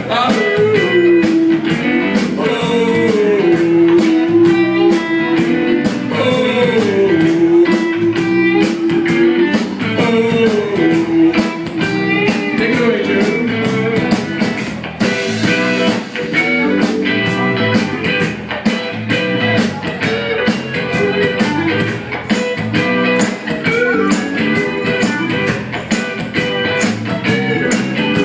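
Blues band playing live, an instrumental passage of electric guitar over a steady drum beat, with long held notes that bend in pitch through the first half.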